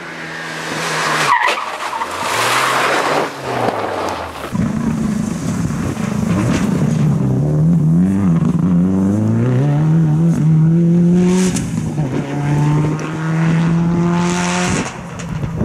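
Subaru Impreza rally car driven hard on a loose dirt and gravel stage. The engine revs climb and then drop several times with gear changes and lifts, over the hiss of tyres sliding and spraying gravel.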